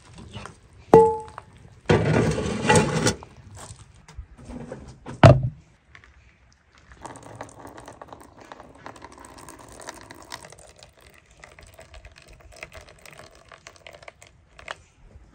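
Handling sounds: a sharp metallic clank that rings briefly about a second in, then about a second of loud rushing noise, and a heavy thunk. After that comes a stretch of softer, scratchy handling noise.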